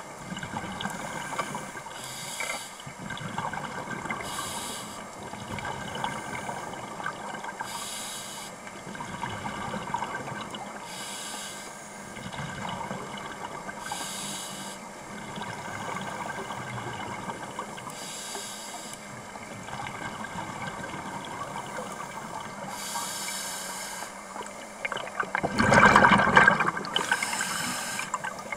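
Water sounds with a hiss that comes back every three to four seconds, and a louder rush of water near the end.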